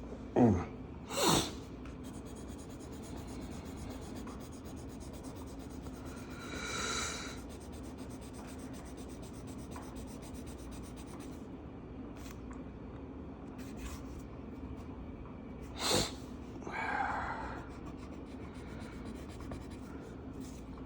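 Felt-tip marker rubbing and scratching on a colouring-book page, over a steady low hum, with a few short, sharp sounds near the start and again about sixteen seconds in.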